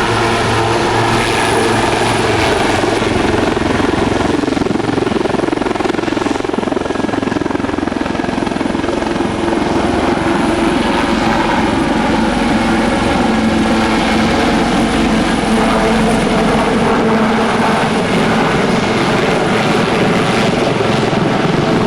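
Two AgustaWestland AW159 Wildcat helicopters hovering low and turning around each other: a loud, steady mix of rotor and turbine noise, with its pitch drifting slowly as they rotate.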